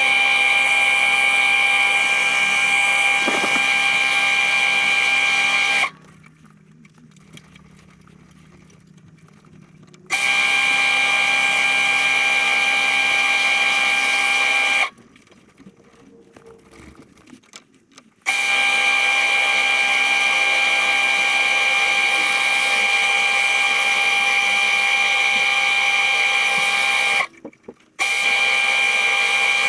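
Lathe motor running with a steady high whine, spinning the acrylic pencil blank for sanding and polishing. It cuts out for a few seconds three times and starts up again.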